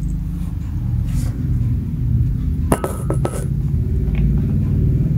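A small spoon knocked against a tile floor by a cat, giving a quick run of several light clinks with a short ring about three seconds in, over a steady low rumble.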